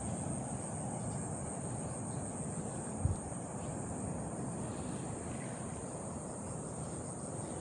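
Steady high-pitched chorus of insects, crickets or cicadas, over a low rumbling background, with a single low thump about three seconds in.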